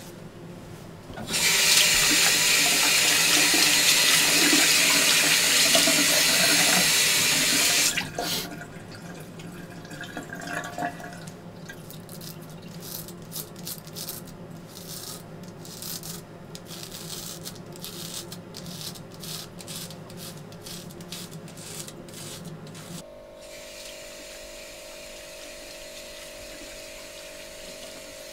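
A tap running into a sink for about six seconds, then shut off. After that, a hand razor scraping over a lathered face in many short strokes.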